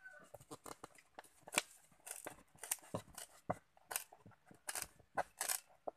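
Parcel packaging being handled and opened: irregular sharp crackles and snips, several a second.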